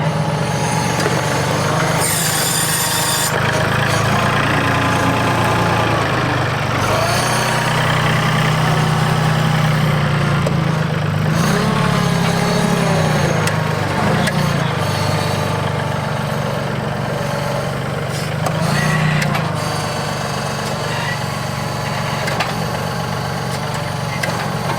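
Yanmar YT235 compact tractor's diesel engine running steadily, its pitch rising and falling several times as the front-end loader works.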